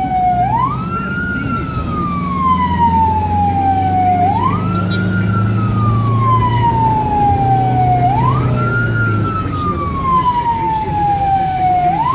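Ambulance wail siren heard from inside the cab of a 2015 Fiat Ducato ambulance: each cycle sweeps up quickly, then glides slowly down, repeating about every four seconds. The van's engine drones underneath.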